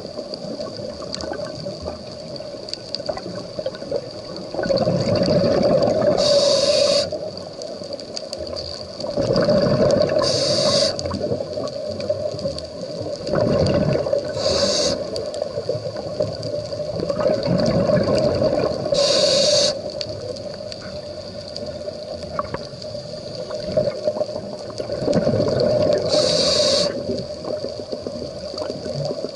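Scuba diver breathing through a regulator underwater: about five breath cycles, each a rumble of exhaled bubbles with a short hiss of the regulator, every four to seven seconds.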